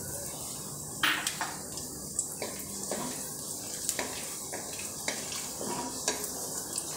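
Whole spices (small cardamom, cinnamon and dried red chillies) sizzling in hot mustard oil in a kadai, a steady hiss with scattered crackles: the tempering (phoron) step. A wooden spatula stirs through the oil, with a few knocks and scrapes against the pan.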